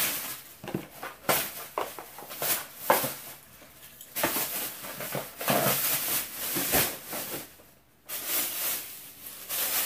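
Plastic shopping bag rustling and crinkling in irregular bursts as items are rummaged out of it, with a short lull near the end.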